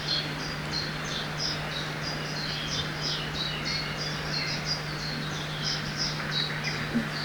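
Forest-by-a-river ambience: small birds chirping short, high, falling notes, several a second, over a steady rush of running water and a faint low hum.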